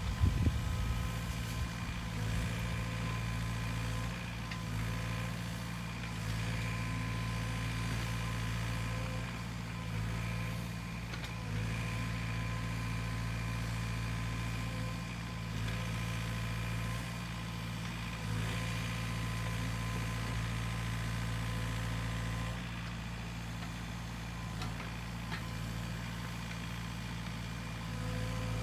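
Sany SY50U mini excavator's diesel engine running steadily, its level stepping up and down every few seconds as the arm works in the brush.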